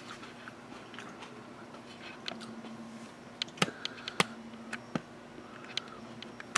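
Quiet room with a faint low steady hum and a scattered run of small sharp clicks and taps, most of them in the second half.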